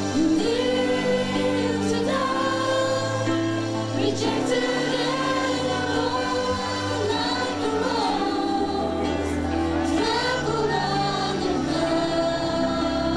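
Gospel music with a choir singing over held chords.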